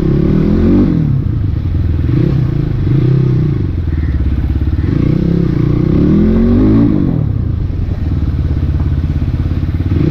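Crossfire CX250RR dirt bike engine running under the rider at low riding speed. The revs rise and fall several times with the throttle, with clear blips about a second in, around the middle and again near 7 seconds.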